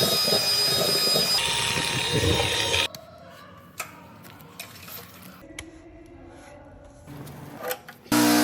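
Drain-cleaning equipment working in a clogged sewer pipe: a loud, steady rushing noise that cuts off about three seconds in. A quieter stretch of scattered clicks and knocks follows.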